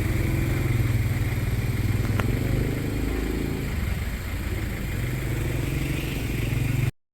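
A vehicle engine running steadily with a low rumble, and one sharp click about two seconds in; the sound cuts off abruptly just before the end.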